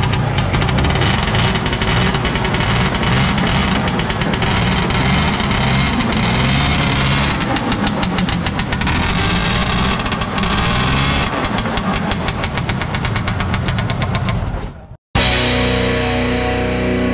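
Vintage snowmobile engine running loudly and unevenly, with rapid popping and a wavering pitch. It stops abruptly about fifteen seconds in, and electric guitar music with distortion starts.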